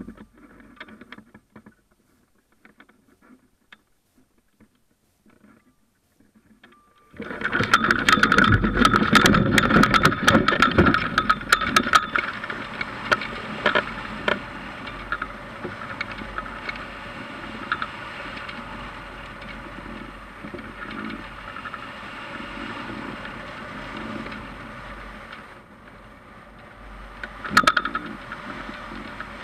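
Wind rushing over the microphone of a camera mounted on a hang glider's wing as it launches and flies. The rush starts suddenly about seven seconds in and is loudest for the next few seconds, with rapid clicking and rattling. It then settles into a steady rush, flaring up briefly near the end.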